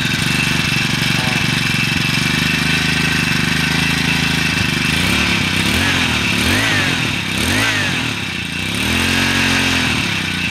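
Huasheng 144F 53cc four-stroke engine idling smoothly. From about halfway it is revved up and down by hand at the throttle: three quick blips, then one longer rise and fall near the end.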